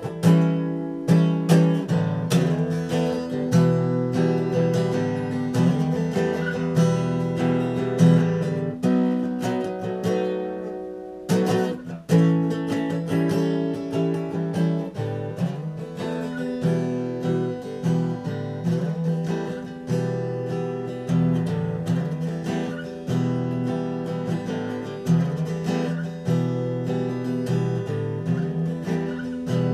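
Acoustic guitar strummed in a steady chord pattern. About nine seconds in, a chord is left to ring and fade, and the strumming picks up again about two seconds later.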